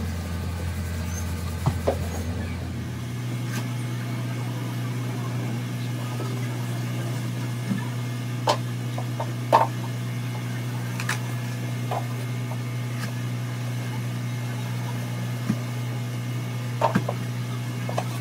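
Steady low machine hum that steps up to a higher pitch about three seconds in, with scattered light clicks and taps over it.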